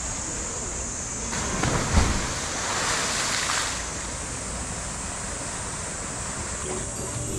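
Polar bear plunging into its pool: a heavy thud about two seconds in, then a loud splash of churned water lasting a second or two. Underneath is a steady wash of running water.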